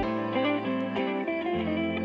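Background music: an instrumental track carried by a plucked guitar playing a run of short notes over a low bass line.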